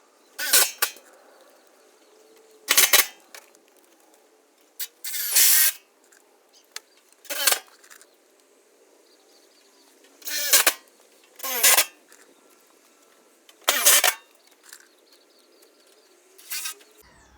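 Cordless drill-driver running in about eight short trigger bursts, each whirring up and winding down, while driving a hex-head screw through thin steel box-profile cladding sheet into timber. The repeated stop-start driving shows the screw is hard to drive home.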